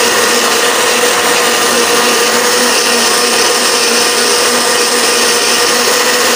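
Electric blender running steadily at full speed, puréeing tomatoes and green chutney into a smooth sauce.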